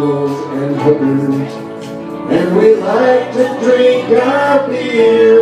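A man singing a country song into a karaoke microphone over a backing track, with a short pause about a third of the way in before the voice comes back strongly.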